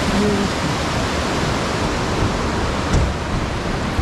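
Fast-flowing mountain river rushing over rocks and rapids: a steady, dense rush of white water.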